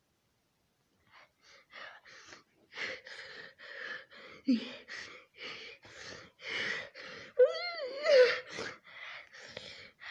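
Cartoon character's voice gasping in a quick run of short breaths, about three a second, the build-up to a sneeze, with a brief wavering cry about three-quarters of the way through.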